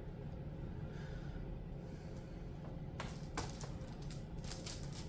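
A butter knife cutting into a chocolate-covered marshmallow: a few faint, sharp clicks about three seconds in and a quick cluster near the end, over a steady low hum.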